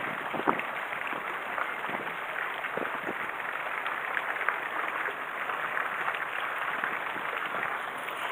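Water lapping against a concrete harbour quay: a steady hiss with scattered small splashes and ticks.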